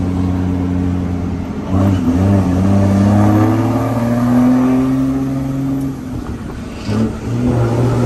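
Truck diesel engine with a modified exhaust pulling under acceleration, heard from inside the cab. Its pitch climbs from about two seconds in, drops briefly near six seconds, then picks up and climbs again.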